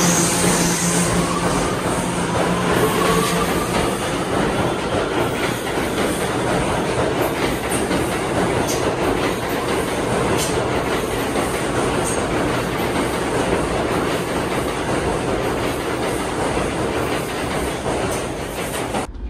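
A New York City subway train running past the platform: wheels clattering with sharp clicks over the rail joints, and a motor whine rising in pitch over the first few seconds. The sound cuts off suddenly near the end.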